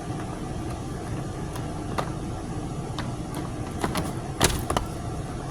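Scattered sharp clicks and knocks of plastic volcano-mould pieces being handled and fitted together, the loudest cluster about four and a half seconds in. A steady low hum runs underneath.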